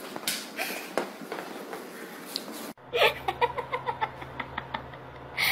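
A woman laughing in a quick run of short, rhythmic bursts. It follows an abrupt cut from a stretch of soft, breathy hissing sounds.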